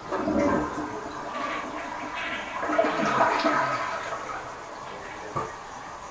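A one-piece, water-saving toilet flushing: a rush of water through the bowl that surges at once, swells again about halfway, then dies down as it drains. The blockage has already been cleared.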